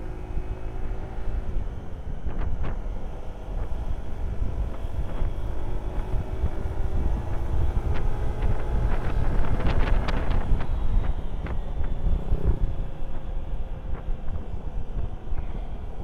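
Motorcycle on the move, wind buffeting the microphone over the engine's note, with a few short clicks around the middle.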